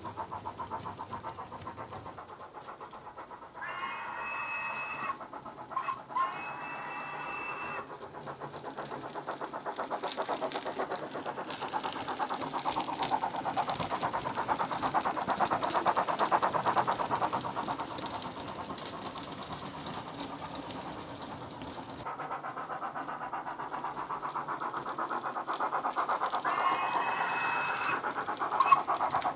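Model steam locomotive's DCC sound decoder (ESU LokSound micro) playing fast, even exhaust chuffs through its small flat speaker, growing louder in the middle as the engine approaches. Two short whistle blasts sound about four seconds in, and another whistle comes near the end.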